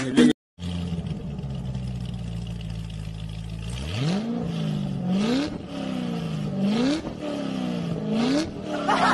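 Engine idling steadily, then revved four times about a second and a half apart, each rev rising quickly in pitch and sinking slowly back.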